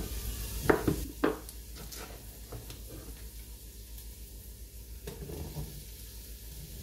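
A kitchen knife cutting through sausage onto a wooden cutting board, three sharp chops in the first second or so. Then the steady sizzle of bacon, onion and garlic frying in oil in a pot, with a soft clatter about five seconds in as the sliced sausage is tipped into the pot.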